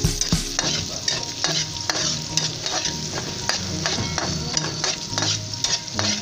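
Chopped onion and garlic sizzling in hot oil in a wok, with a metal spatula scraping and clicking against the pan about twice a second as it is stirred.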